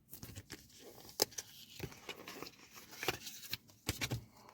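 Paper and plastic packaging rustling and crinkling, with several light clicks, as a FASTag sticker is taken out of its envelope.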